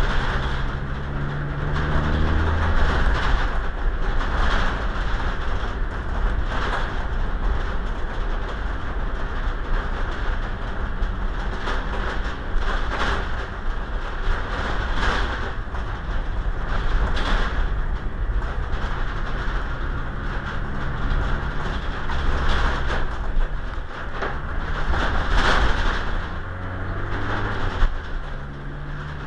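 Steady vehicle rumble with an engine hum that rises and falls in pitch near the start and again near the end.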